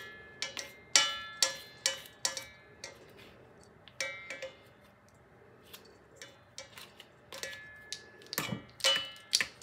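A kitchen utensil knocking and scraping against a metal mixing bowl in a series of irregular knocks, several with a short metallic ring, as the last of the cookie mixture is scraped out.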